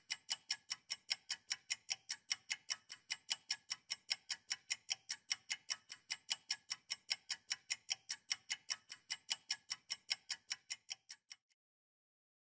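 Clock-style ticking sound effect of a quiz countdown timer: fast, even ticks, about four a second, stopping abruptly about eleven seconds in as the countdown runs out.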